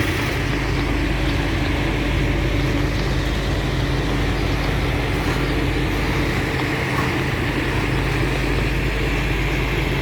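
Slow-moving CSX autorack and intermodal freight train passing, a steady rumble with a constant low hum.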